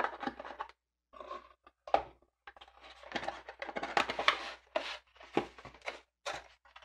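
Boxed SSD being handled and opened by hand: an irregular run of rustles, scrapes and small clicks from the packaging.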